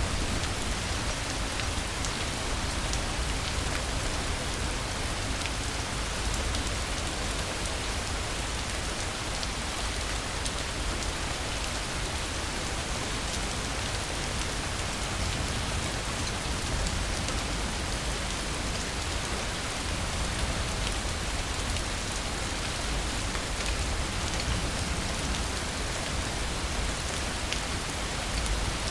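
Steady rain, an even hiss with scattered individual drops ticking through it.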